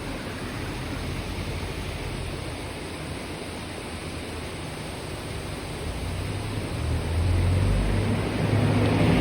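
Kibune River water rushing steadily over rocks. Over the last few seconds a low rumble grows louder as a car approaches.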